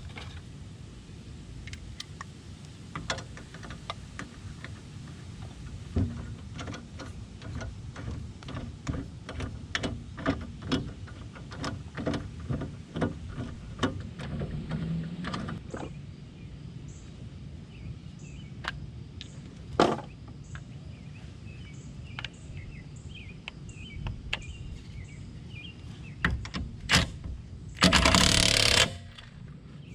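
Hand tools working on a car's front suspension and brakes: a run of quick metallic clicks and knocks, then scattered single knocks, and a loud noisy burst lasting about a second near the end.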